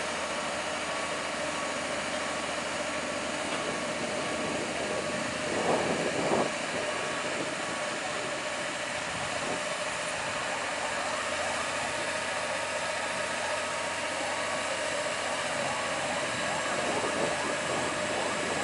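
Heavy truck engine running steadily, with a brief louder burst about six seconds in.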